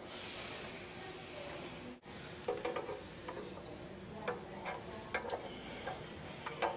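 A soft hiss, then a run of light, irregular clicks and clatter of small hard objects being handled.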